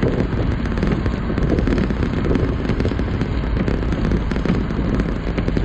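Heavy rain pelting a pickup truck's roof and windshield: a dense, steady crackle of drops over a low rumble.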